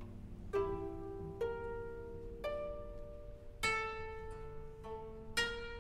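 Koto ensemble playing a soft, sparse passage: single plucked notes about once a second, each ringing and fading over a low held tone.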